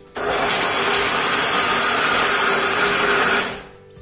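Electric mixer grinder running in one short burst, grinding fried masala in its steel jar. It starts abruptly and winds down about three and a half seconds in.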